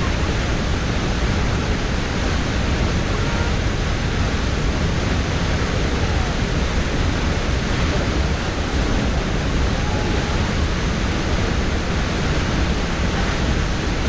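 Huka Falls: the Waikato River forced through a narrow rock ravine and over the falls, a steady, loud rush of white water, deepest at the low end.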